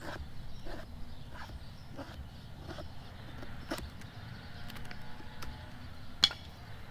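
Repeated short, sharp scrapes about every 0.7 s, typical of a knife spine striking a ferro rod to light tinder. One stroke about six seconds in is the loudest.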